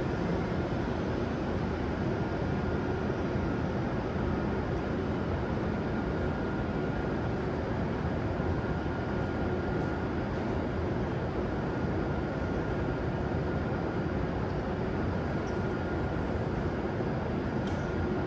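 Steady low rumble and hiss of railway station ambience after a train has departed, with no distinct event; a faint steady tone comes and goes.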